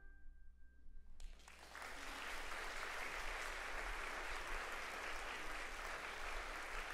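The last held note of the music fades away, and about a second in an audience starts applauding, steady clapping that carries on to the end.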